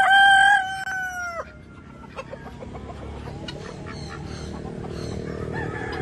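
A rooster crowing once: a long, clear call that holds its pitch and then falls away about a second and a half in, followed by low background noise.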